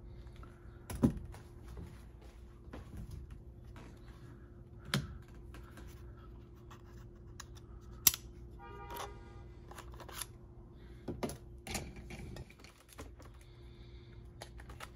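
Handling of a camera and its spare batteries: scattered sharp plastic clicks and knocks, the loudest about a second in and about eight seconds in, with a short squeak near nine seconds and a faint steady hum.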